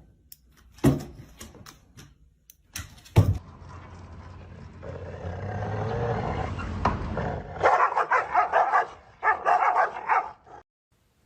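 A dog vocalizing, mostly in two bursts of rapid barking over the last three seconds, after a couple of knocks near the start.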